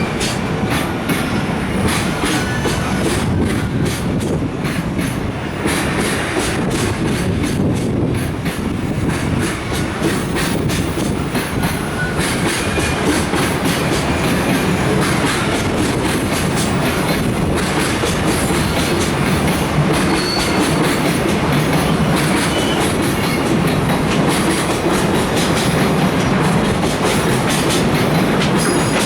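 Container wagons of a departing freight train rolling past, with a steady rumble and the wheels clacking over rail joints, the clicks densest in the first third.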